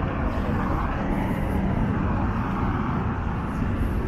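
Steady road traffic noise: a continuous low rumble of car engines and tyres.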